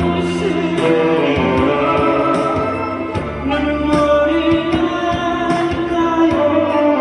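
A Korean ballad being sung over a backing track, with held melody notes over bass and a steady drum beat.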